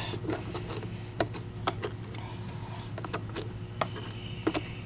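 Scattered light clicks and rubbing as a hand turns and strokes the stiff bristles of an Oreck XL-21's new brush roller, over a steady low hum.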